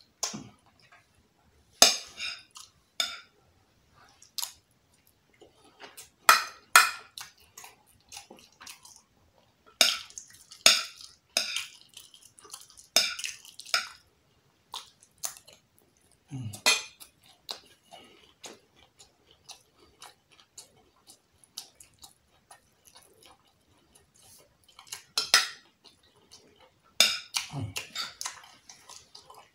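Metal spoon scraping and clinking against a glass baking dish while scooping rice, in irregular sharp strokes, loudest in short clusters.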